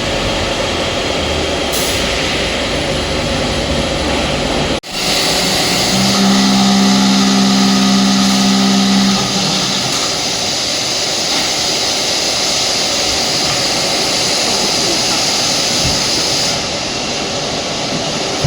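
Hydraulic press machinery for wetcast concrete slabs running: dense, steady mechanical noise with hiss. It breaks off abruptly about five seconds in and resumes at once. A steady hum comes in louder for about three seconds from around six seconds in.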